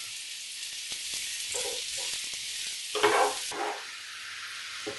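Sliced mushrooms sizzling steadily in hot oil in a frying pan. A wooden spatula stirs and scrapes them in two short spells, about a second and a half in and again around three seconds.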